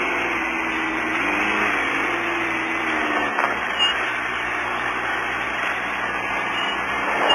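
Off-road race car at speed, heard from inside the car: a steady rush of engine and rough-terrain noise. The engine's pitch rises and falls during the first few seconds.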